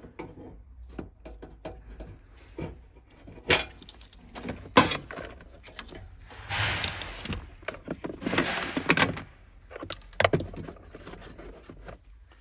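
Scattered clicks, knocks and clinks of hand tools and metal parts being handled on a hybrid battery pack's metal casing, with two longer noisy sounds of about a second each, around the middle.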